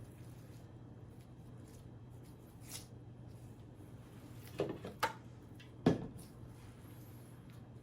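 A few short clicks and knocks of handling, most of them bunched a little past halfway, over a steady low hum.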